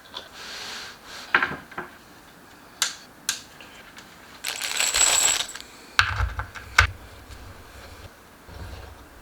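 Flat-pack furniture being assembled by hand: a series of sharp clicks, clinks and knocks of small hardware and panels, with a brief rustle about halfway through and a few dull thuds after it.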